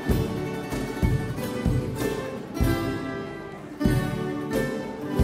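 An ensemble of violas caipiras, the Brazilian ten-string folk guitar, strumming chords in a steady rhythm.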